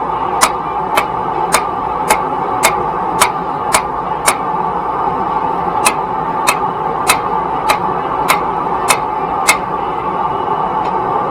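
A hammer striking hot metal in an even rhythm, about two blows a second, over a steady rushing noise.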